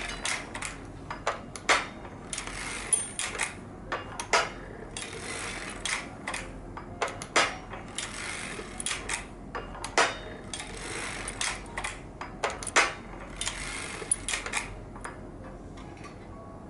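Harrison semi-automatic sock knitting machine being hand-cranked back and forth through a heel: swells of metallic clattering from the needles and cams on each pass, with sharp clicks every couple of seconds. It quietens near the end.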